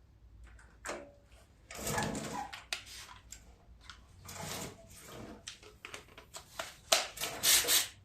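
Irregular clicks, rubs and rattles of hand tools and metal and plastic engine parts being worked loose, the busiest stretch near the end.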